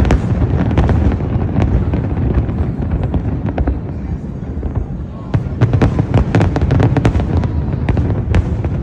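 Fireworks display: a rapid barrage of bangs and crackles over a continuous low rumble. It eases briefly about four seconds in, then picks up again.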